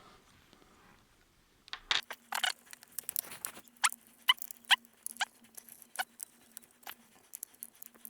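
Small screws being driven back into a Lenovo ThinkPad T440p laptop: a run of sharp clicks and short squeaks, starting about two seconds in, over a faint steady hum.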